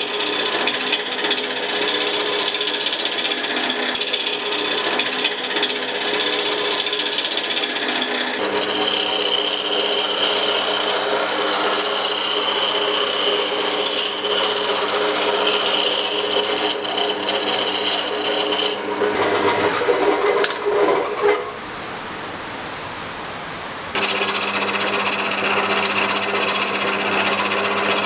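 Wood lathe running with a hand-held turning chisel cutting a spinning wooden spindle: a steady motor hum under the hiss and scrape of the cut. The sound shifts in character a few times and drops quieter for a few seconds about three-quarters of the way through.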